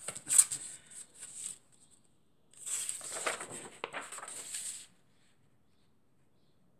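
Sheets of paper and magazines rustling as they are shuffled and leafed through, in two spells, with a sharp tap about half a second in.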